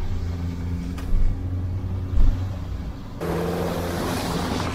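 Old Mazda car's engine pulling steadily up a steep hill, heard inside the cabin, running freely with its clogged catalytic converter removed. About three seconds in the sound switches suddenly to the car driving close by on a gravel track, engine and tyres on loose stones louder and fuller.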